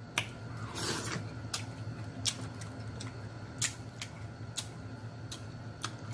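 Snow crab shell cracking and snapping as it is broken apart by hand, about six sharp cracks spread over a few seconds, with a short slurp of eating about a second in.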